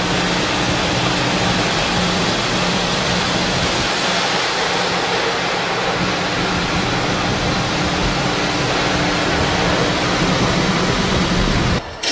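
Water jets of an automatic car wash spraying and drumming on a car's windshield and roof, heard from inside the cabin: a loud, steady rush with a low hum beneath. It cuts off abruptly near the end.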